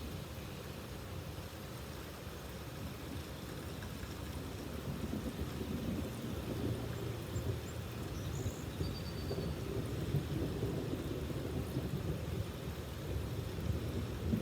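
Storm noise: rain falling with a low, flickering rumble of wind and possibly distant thunder, growing louder from about four seconds in.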